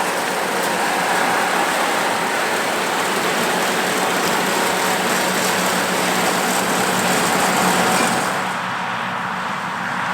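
Oliver 1655 tractor's six-cylinder Oliver-Waukesha engine running steadily under load while pulling a New Idea 324 two-row corn picker through standing corn. The sound drops and becomes duller about eight seconds in.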